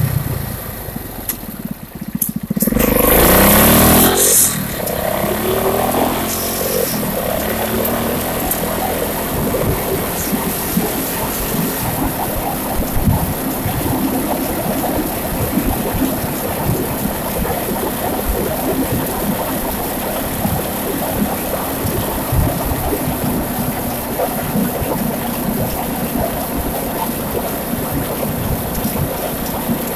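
Suzuki 500cc twin-cylinder motorcycle engine in a custom Yamaha Blaster quad, running quietly for the first couple of seconds, then revving hard as it pulls away. It then runs steadily at cruising speed.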